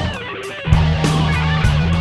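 Rock song with strummed electric guitar over bass and drums. The low end drops out for a moment, then the full band comes back in with a hit under a second in.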